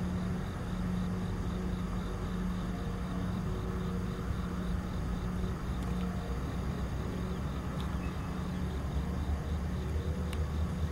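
Diesel locomotive engine running, a steady low rumble that grows louder near the end, with insects chirping faintly in the background.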